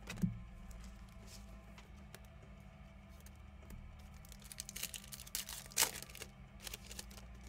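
Trading cards and foil card-pack wrappers being handled: scattered soft clicks, rustles and crinkles, with a louder flurry about five to six seconds in, over a low steady hum.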